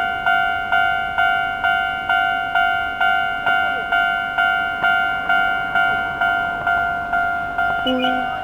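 Japanese railway level-crossing warning bell ringing, about two strokes a second, each stroke struck and fading: the alarm that a tram is approaching. A brief low tone sounds near the end.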